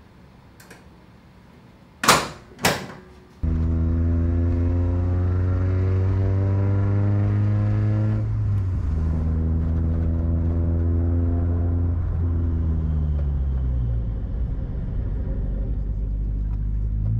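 Two loud thumps about half a second apart, then a Mazda Miata's four-cylinder engine pulling away: the pitch rises, breaks off at a gear change, rises again, then falls as the car slows and settles.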